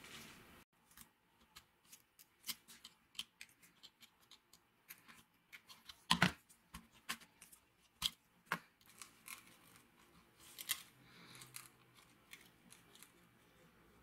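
Irregular small clicks and ticks of thin metal wires and a small ceramic part being handled and bent by gloved fingers, with a few sharper snaps about six and eight seconds in.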